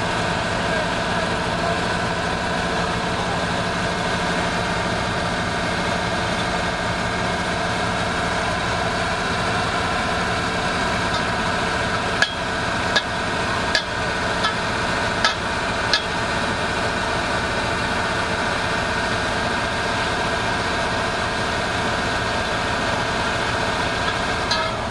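Heavy diesel engine, likely the bulldozer's, idling steadily. About halfway through, a quick run of about six sharp knocks sounds over it.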